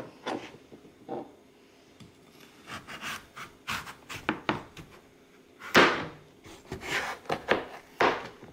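Chef's knife sawing through peeled raw butternut squash and knocking on a plastic cutting board, in a series of separate strokes. The loudest stroke comes a little past the middle, followed by several quicker cuts near the end.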